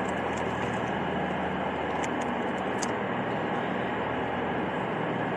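Steady rumble and hum of a large railway station's platform hall, with a few faint ticks about two to three seconds in.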